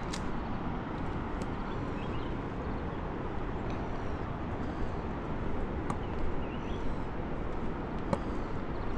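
Steady low rumble of wind and handling noise on a phone microphone during a walk down stone steps, with a few sharp footstep clicks and faint bird chirps.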